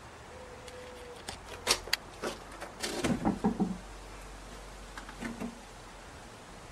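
Irregular clicks and knocks, a scattered run of them followed by a denser cluster about three seconds in and a few weaker ones near the end.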